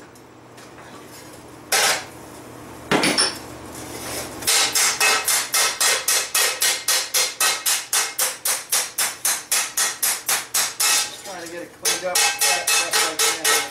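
Hand hammer striking a steel frying-pan blank over a metal stake. There are two single ringing blows, then a steady run of about four blows a second, with a brief pause near the end before the hammering resumes.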